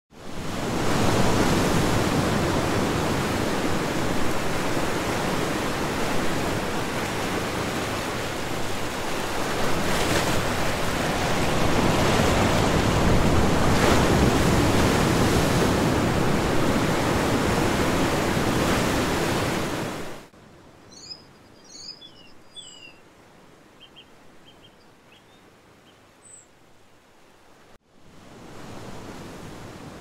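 Ocean surf breaking on rocks: a loud, steady rush of water that stops suddenly about two-thirds of the way through. A quiet stretch follows, with a few faint, short, high chirps.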